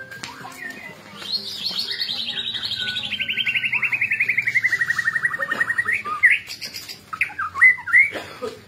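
White-rumped shama (murai batu) singing: a long, rapid trill that slides steadily down in pitch over about four seconds, followed by a few short, sharp chirps near the end.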